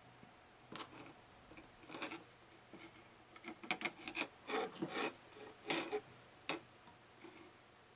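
USB cables and plastic plugs being handled and pushed together: scattered rubbing and clicking, busiest between about three and a half and six seconds in.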